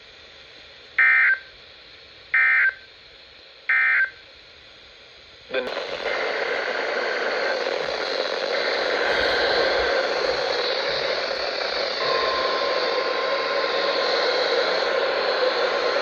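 Three short EAS end-of-message data bursts, the SAME digital code's screechy modem-like warble, about a second and a half apart, marking the end of the alert. About five and a half seconds in, a steady, loud rushing noise starts and runs on.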